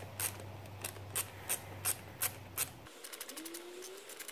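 Ratcheting screwdriver clicking as a screw is backed out, about three clicks a second; from about three seconds in, a quicker run of fainter ratchet clicks.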